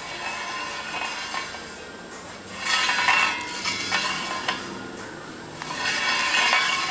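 Metal clinking and rattling from work on a spoked motorcycle wheel, with two louder spells of clatter in the middle and near the end.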